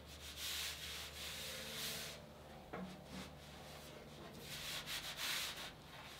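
Faint swishing of a hand rubbing over the bare steel of a freshly welded Porsche 911 front fender flare, feeling along the weld seam in three soft strokes, with a small tick near the middle.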